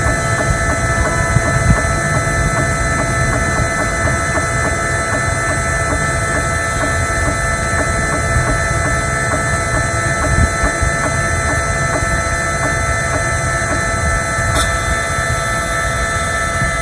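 Small CNC engraving spindle motor running steadily with a whine of several steady tones, while the cutter is lowered toward the surface of a phone IC. There is a brief sharp tick near the end.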